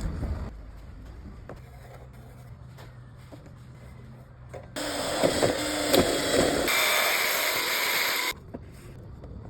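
A small motor runs for about three and a half seconds, starting and stopping abruptly, with a faint steady hum before and after.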